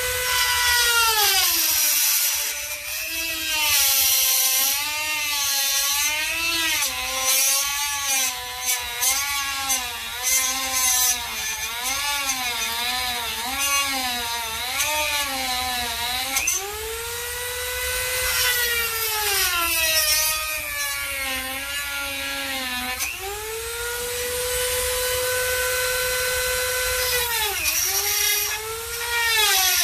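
High-speed corded rotary tool with a cutoff disc cutting into a Corvette's fiberglass-composite fender. Its motor whine holds a steady pitch when running free, then drops and wavers as the disc bites into the panel. It recovers when the disc is eased off, about halfway through and again near the end.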